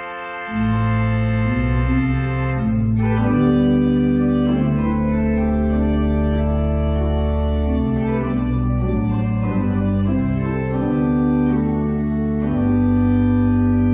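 Organ playing a hymn in sustained chords over a deep bass line, the chords changing every second or two.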